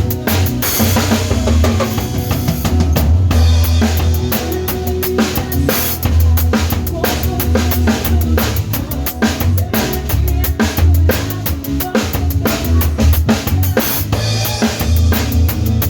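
Drum kit played in a steady groove over a band backing track: kick drum, snare with rimshots, and cymbal crashes, the louder crashes about half a second in, around two and a half seconds, six seconds and fourteen seconds.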